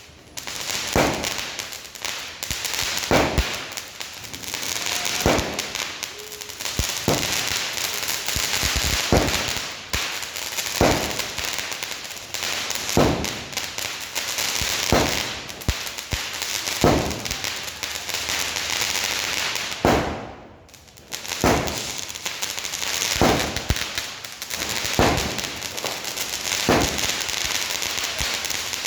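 NPK 'Whats Up' 50-shot firework cake firing, one sharp shot about every second, with a steady crackling sizzle between the shots. The sizzle dies away briefly about twenty seconds in before the shots resume.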